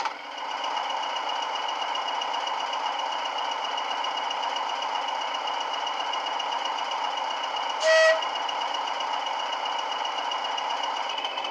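Sound decoder in a Bachmann Class 20 model locomotive, playing its English Electric diesel engine idling steadily through the speaker in the fuel tanks, with one short horn blast about eight seconds in.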